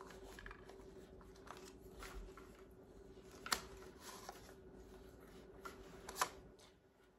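Handling noise from a Savage .22 rifle being lifted, turned over and set back down on a shooting rest: soft rubbing with a few light clicks and knocks, the sharpest two about three and a half and six seconds in. A faint steady hum runs underneath.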